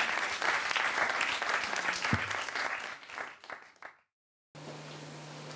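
Live audience applauding, dying away about three seconds in and cutting off abruptly; after the cut, a steady low hum.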